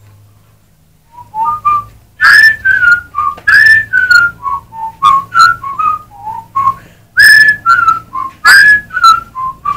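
A person whistling a tune close to the microphone: a run of short notes, many sliding down in pitch, beginning about a second in and loud enough to distort at its peaks. A low steady hum sits underneath.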